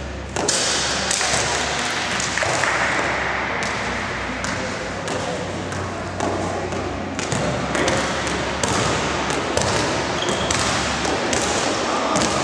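Basketball game sounds in a gymnasium: a basketball bouncing and thudding on the court amid indistinct voices of players and spectators, with scattered short knocks throughout.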